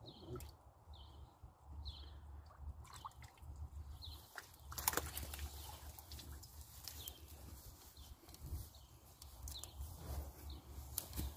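Pond water splashing as a long-handled fish net is pulled out, sharpest about five seconds in, then water draining and dripping from the net. Under it, a low wind rumble and occasional short bird chirps.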